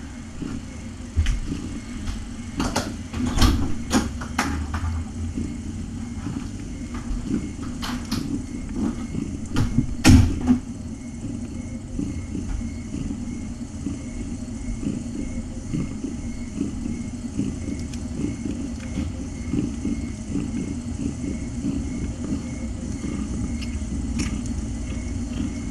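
Nursing mother cat purring steadily, with a few sharp clicks and knocks in the first half, the loudest about ten seconds in.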